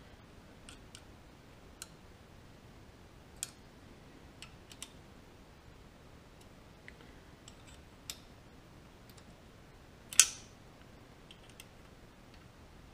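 Small metal parts clicking and tapping as they are handled: a screw and the steel drive shaft of a milling-machine power feed. There are a dozen or so scattered light clicks, the loudest a sharp clack about ten seconds in.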